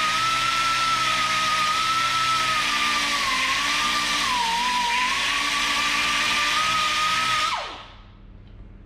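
Pneumatic die grinder running at a steady high whine as it grinds down a welded bead on a steel steering knuckle. Its pitch sags briefly under load about four and a half seconds in. Near the end the trigger is let go and it winds down in a quick falling whine.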